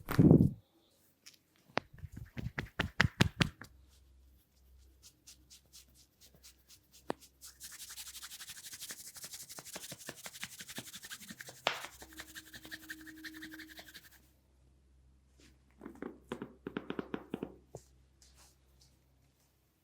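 Hands massaging a head of long oiled hair. A heavy thump comes at the start, then a quick run of rhythmic taps, then several seconds of fast scratching and rubbing through the hair and scalp. Another run of taps comes near the end.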